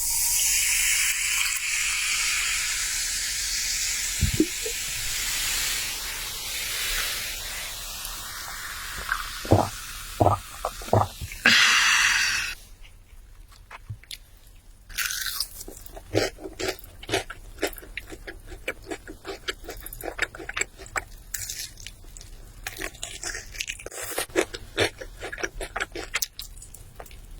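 A steady hiss with a few soft thumps for about the first twelve seconds. Then close-miked crunching and chewing of crispy fried chicken, a dense run of quick crackles.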